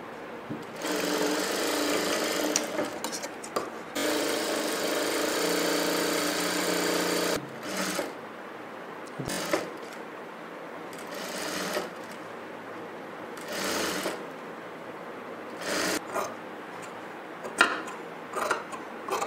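Sewing machine stitching fabric in stops and starts: two runs of a couple of seconds and about three seconds early on, then several short bursts and a few sharp clicks near the end.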